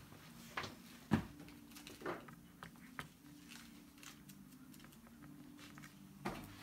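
About five scattered light knocks and taps of plywood cabinet parts being handled on the bench, the loudest about a second in, over a steady low hum.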